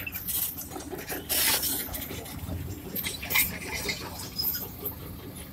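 A heavy earth-moving machine's diesel engine running low and steady, with irregular metallic clinks, scrapes and rattles as soil and stones are worked.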